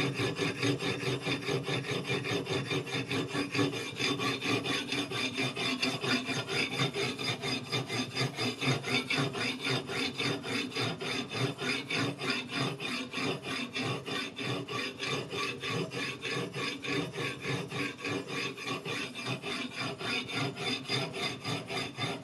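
Whetstone on the guide rod of a clamped knife-sharpening system rubbing back and forth along a steel chef knife's edge in quick, even strokes.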